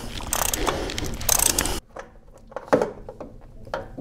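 Hand ratchet on a long extension, turning an oil filter wrench, clicking in quick runs to loosen the oil filter. The ratcheting stops abruptly a little under two seconds in, followed by a couple of light knocks.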